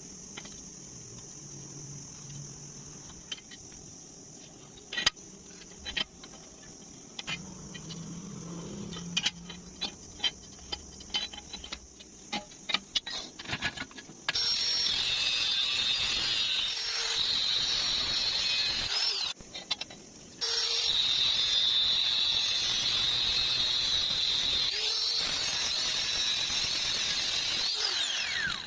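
Light metal clinks and taps, then an angle grinder running on steel box tubing with a high whine. It stops briefly, runs again, and winds down with a falling pitch near the end.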